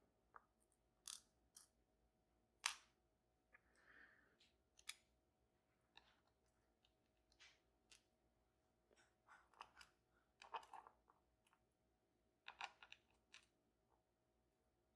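Faint, irregular small clicks and taps of a Banham M2002 lock's parts and tools being handled while the lock is taken apart, with a slightly louder click about three seconds in.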